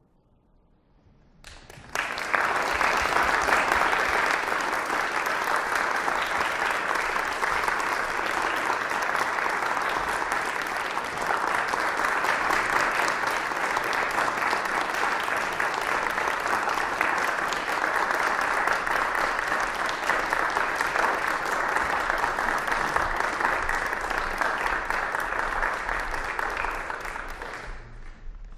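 Audience applauding: dense, even clapping that starts about two seconds in, holds steady, and fades out near the end.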